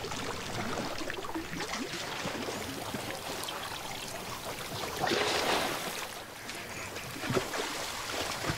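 African elephants drinking in shallow water, with water splashing and dribbling from their trunks. The splashing swells noticeably about five seconds in.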